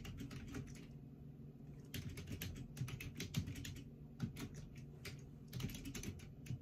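Computer keyboard being typed on in a few short runs of quick keystrokes with pauses between them, over a faint steady low hum.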